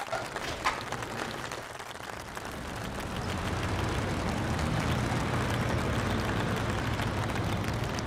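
A low, steady engine rumble that swells in about two seconds in and holds, after a single click about a second in.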